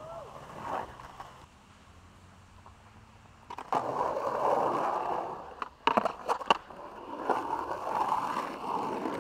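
Skateboard wheels rolling, starting about three and a half seconds in, with a quick cluster of sharp clacks from the board about six seconds in before the rolling carries on.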